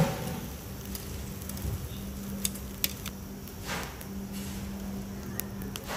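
Thick pork and beef steaks sizzling on the wire mesh of a charcoal grill, with a short clatter of metal tongs turning a steak at the start and a few sharp crackles and pops, over a steady low hum.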